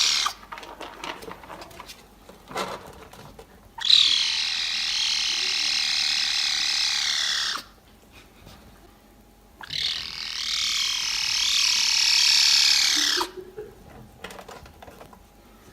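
A cat making long, high-pitched, laser-beam-like calls: two steady calls of about three and a half seconds each, with a slight waver in pitch, and the end of another at the start. Faint small clicks and rustles fill the gaps between them.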